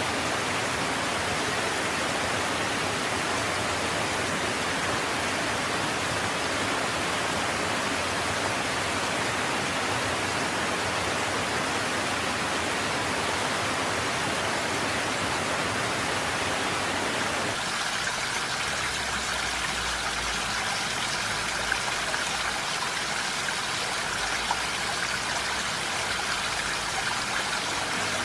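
Steady, even rushing hiss with no distinct animal sounds standing out; a little past halfway it turns thinner and brighter.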